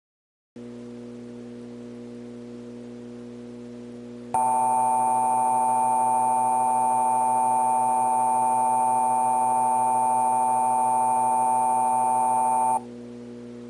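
Emergency Alert System attention signal: a loud, steady two-tone alarm held for about eight seconds, starting about four seconds in and cutting off suddenly. It sits over a low steady hum, which starts about half a second in and continues after the tone stops.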